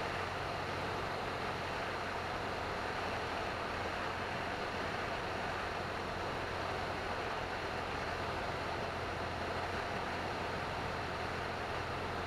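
Cessna 172N's four-cylinder Lycoming engine and two-blade propeller running steadily in flight, a constant low hum under a rush of air noise.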